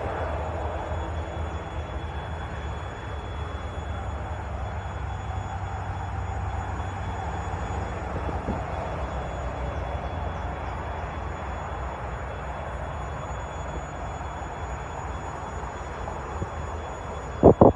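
Train running at the station: a steady low rumble with a rushing noise. Near the end come two short, loud blasts in quick succession.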